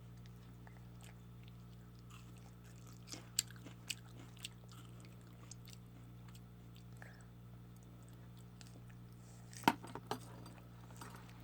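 A toddler eating: faint chewing with small mouth clicks and smacks, a few of them between three and four and a half seconds in and a sharper pair near the end, over a steady low hum.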